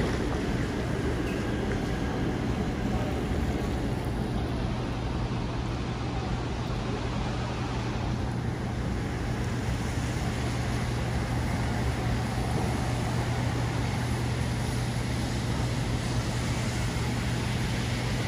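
Steady city street traffic on wet pavement, with a constant low hum underneath.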